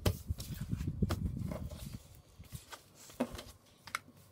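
Hands pressing and sliding a sheet of A4 paper flat against a tabletop to fold and crease it, with a few sharp taps of hand and paper on the table. The rubbing is heavier in the first two seconds, then quieter.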